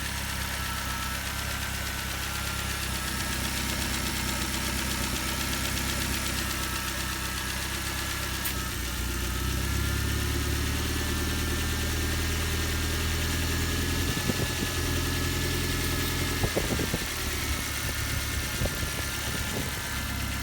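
2007 Ford Focus 2.0L Duratec inline-four idling with a ticking, which the owner puts down to a failing intake manifold runner control (IMRC) valve whose runner flaps flutter instead of opening properly. A few sharper knocks come in the last few seconds.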